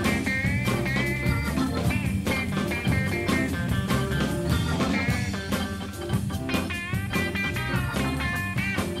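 Funky, bluesy jazz recording playing, with electric guitar, bass and drums keeping a steady beat and lead lines that bend in pitch.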